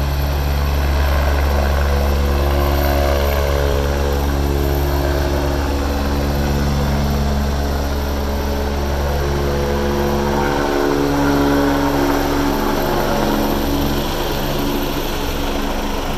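Medevac helicopter taking off and climbing overhead: steady, loud rotor and turbine noise, its engine tones shifting in pitch as it moves, with the low rotor beat easing off about two-thirds of the way through as it climbs away.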